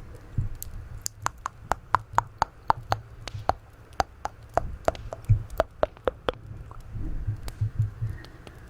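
Close-miked ASMR mouth sounds: a quick run of sharp, wet tongue clicks, about four a second, thinning out after about six seconds.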